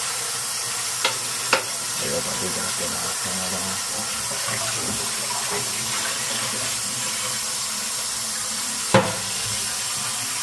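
Kitchen tap running steadily into the sink. A few sharp clicks or knocks come through it: two about a second in, half a second apart, and one near the end.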